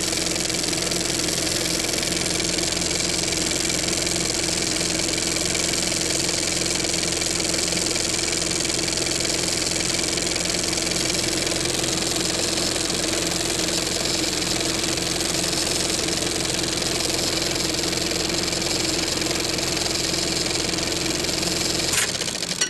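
Television static: a steady hiss with a low hum under it, holding an even level and stopping abruptly at the end.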